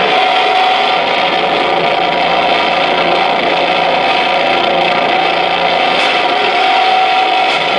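Live harsh noise music: a loud, dense wall of distorted noise with steady held tones running through it. A low rumble underneath drops out about six seconds in.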